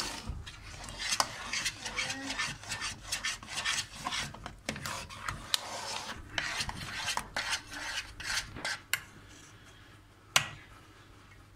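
Metal spoon stirring and scraping a thick, stiffening homemade kaşar cheese mixture around a stainless steel pot: a fast, irregular run of rasping scrapes and clicks against the pot's sides and bottom. It eases off about nine seconds in, with one sharp clink shortly after.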